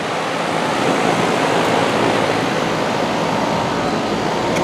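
Outdoor heat pump condenser unit running close by: a steady rush of air from its fan, with a faint low hum underneath.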